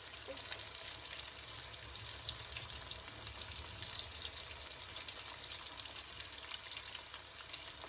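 Flour-coated salmon and shrimp frying in hot oil: a steady sizzle with many fine crackles.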